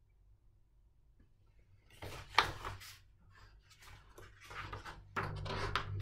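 About two seconds of near silence, then paper rustling and light handling noises as a picture book's pages are turned, loudest about two and a half seconds in and again near the end.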